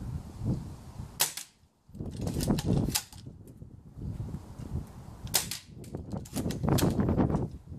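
Modify MOD24 bolt-action airsoft sniper rifle being fired and cycled. Several sharp clacks come at uneven intervals over a low rumble, with a tighter run of clicks near the end.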